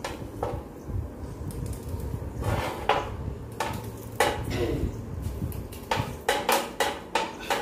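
Steel kitchen utensils clinking and knocking: a knife against a steel bowl as onions are cut, and burger buns handled on a flat griddle. The clicks are scattered, with a quick run of them near the end, over a low steady rumble.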